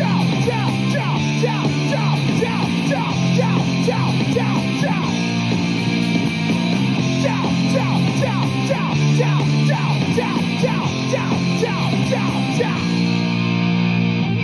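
Background music: a band-style song passage with steady bass notes and many quick notes sliding down in pitch.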